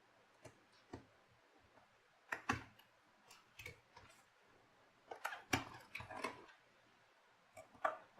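Light, scattered clicks and taps of a smartphone's small plastic and metal parts being handled on a work surface, as the motherboard is lifted out and the parts are set down. The taps come in small clusters, the busiest about two and a half and five and a half seconds in.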